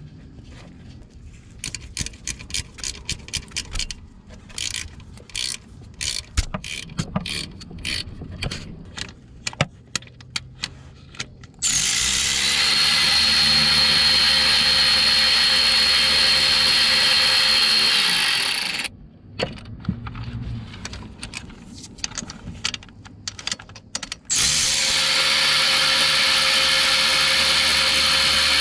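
A hand ratchet clicking in irregular short strokes on a bolt, then a power tool spinning a socket with a steady high whine for about six seconds. More ratchet clicks follow, and the power tool runs again in the last few seconds.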